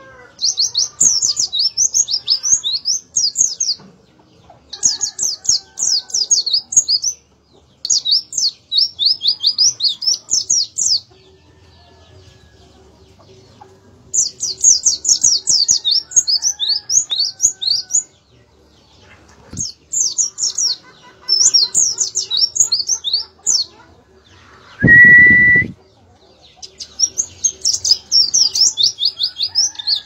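Caged white-eye (pleci) singing hard, in phrases of rapid, high, falling notes a few seconds long separated by short pauses. About twenty-five seconds in, a loud blast about a second long with a steady high tone cuts across the song.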